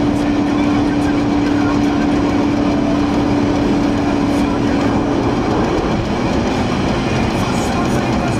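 Cabin noise of a 2016 Volkswagen Golf GTI at about 118 mph: a loud, steady rush of wind and tyre noise with a steady engine hum that fades out about five and a half seconds in as the car starts to slow.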